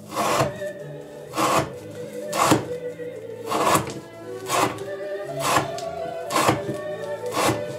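Knife slicing through rope onto a wooden board in a repeated rope-cutting test, eight cuts at about one a second, over background music.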